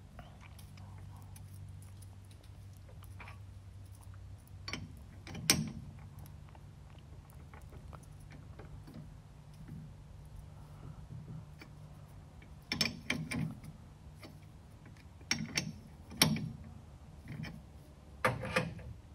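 Metal clicks and clanks of a lathe's six-jaw chuck being handled and turned by hand as a part is clamped in its jaws. The clicks come in scattered clusters, one about five seconds in and several more in the last seven seconds.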